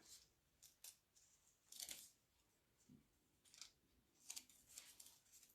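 Faint, short scraping strokes, a few in a row with pauses between: a squeegee drawing chalk paste across a mesh chalk transfer.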